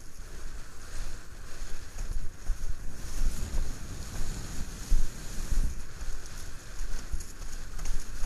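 Wind buffeting the microphone of a camera mounted on a Fanatic Falcon slalom windsurf board planing fast over chop, over the steady rush and hiss of water, with a few low thumps as the board hits the waves.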